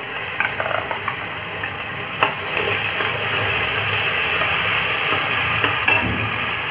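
Oil sizzling steadily in a kadhai where onions are frying, with a spoon stirring against the pan. A knock comes about two seconds in, and after it the sizzle grows louder as the soaked chana dal goes into the hot oil.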